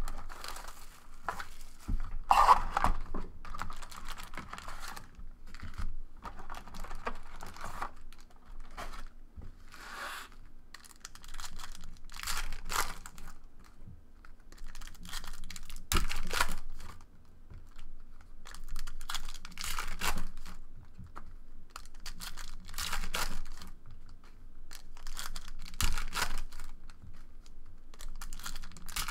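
Foil wrappers of Panini Prizm trading-card packs being torn open and crinkled, with the cards handled in between, in a string of short rustling bursts every second or two.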